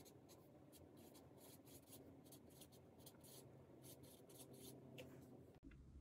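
Dry-erase marker writing on a tabletop dry-erase pad: a faint run of short, scratchy strokes as a word is written.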